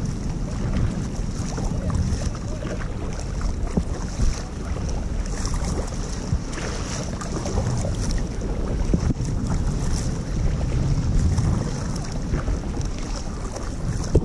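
Wind buffeting the microphone in a steady rumble, with water washing along the hull of a moving kayak.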